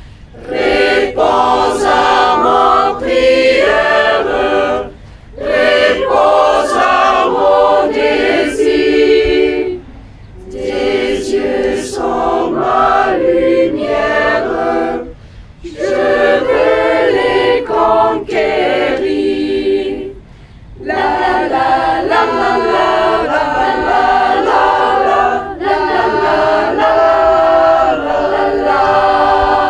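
Youth choir of girls and boys singing a cappella, in phrases of a few seconds with short breaths between them.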